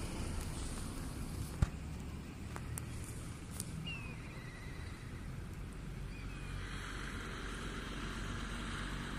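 Outdoor ambience: a steady low rumble like an engine running, with one sharp knock about a second and a half in and two brief high falling chirps a few seconds apart.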